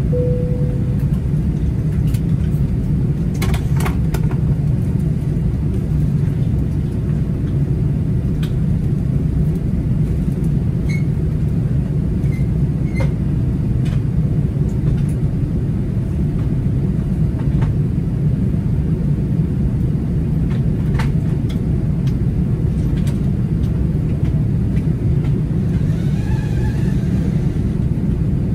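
Steady low rumble of cabin noise inside an Airbus A380-800 climbing out after takeoff: engine and airflow noise. A short tone sounds at the very start, and a few faint clicks come through now and then.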